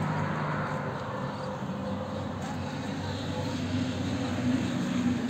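Road traffic: a motor vehicle's engine humming steadily over a wash of traffic noise, its note rising somewhat in the second half.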